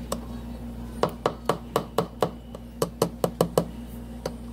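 An irregular run of about a dozen quick, sharp knocks, a kitchen utensil such as a spoon striking a bowl or container, over a steady low hum.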